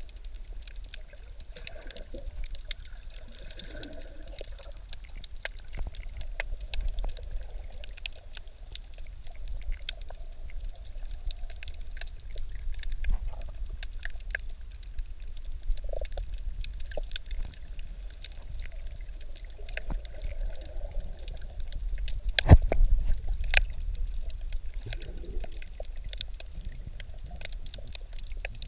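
Underwater sound heard through a submerged camera: a steady low rumble of moving water, with occasional gurgles and scattered sharp clicks and crackles. One louder knock comes about 22 seconds in.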